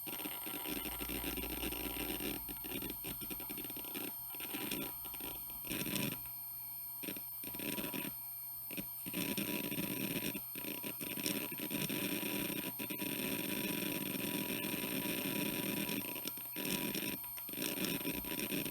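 Hitachi Deskstar 7K80 80 GB IDE hard drive seeking under the heavy disk access of a Windows 7 installation. Its heads make irregular stretches of rapid seek noise broken by short pauses, over a steady high tone.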